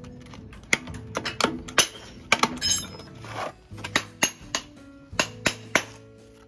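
Metal hand tools clinking, about nine sharp clinks and a short scrape, as a Jolypate pail lid is pried open and a steel plastering trowel works the finish off a hand board, over background music.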